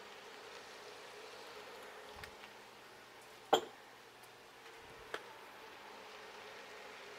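Faint steady hum and buzz from an induction cooktop heating a pan of fried rice, over a soft sizzle. One sharp click comes about three and a half seconds in, and a smaller click about five seconds in.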